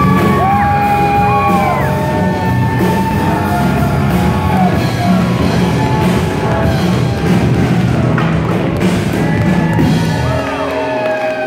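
Live band playing rock music with drums, guitar and keyboard, with singing and whoops over it; the band stops near the end.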